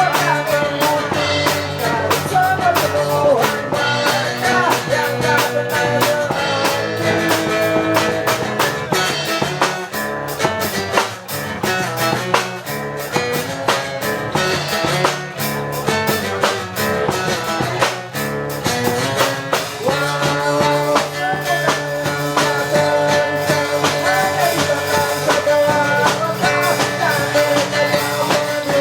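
Acoustic pop-punk band music: guitars and a drum kit playing steadily, with a melody line over them.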